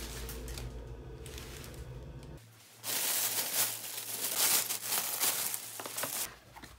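Thin plastic carrier bags crinkling and rustling loudly for about three seconds as they are pulled open and off a pizza box. Before that, a low steady hum for the first two seconds or so.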